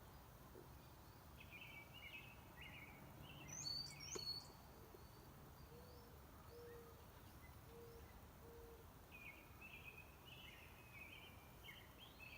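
Faint woodland birdsong: short songbird phrases near the start and again near the end, sharper high chirps about four seconds in, and a run of five low, even coos in the middle.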